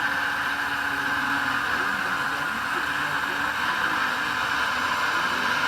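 Steady whir of the small electric motors and gearing of radio-controlled model construction vehicles at work.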